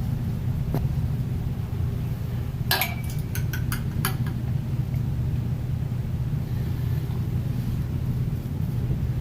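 A steady low mechanical rumble, with a quick cluster of clicks and taps from PVC drain pipe fittings being handled about three to four seconds in.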